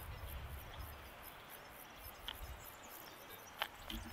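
Faint outdoor ambience: insects in the grass chirping in a steady high-pitched pulse, about four or five chirps a second, over a low rumble, with a few short faint clicks in the second half.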